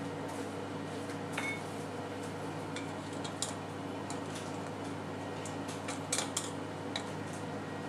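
Wooden chopsticks tapping and scraping against a stainless steel bowl while turning a pork roast in sauce: scattered sharp clicks, one with a brief metallic ring about a second and a half in, and a quick cluster of taps about six seconds in. A steady low hum runs underneath.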